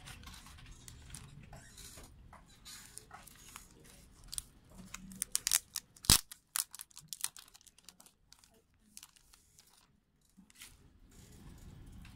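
Plastic shrink wrap on a cardboard-sleeve CD rustling and being torn open, with a dense run of sharp crackles in the middle, the loudest about six seconds in.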